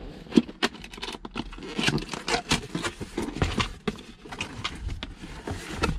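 A cardboard box being handled and opened by hand: irregular taps, knocks and scrapes of the cardboard flaps.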